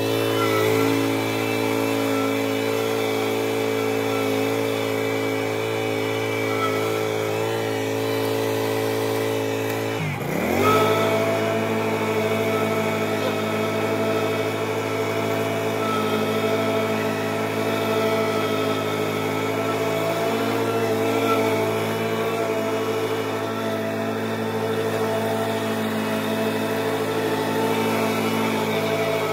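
Lawn mower engine running steadily at high throttle, with a brief drop in pitch and quick recovery about ten seconds in.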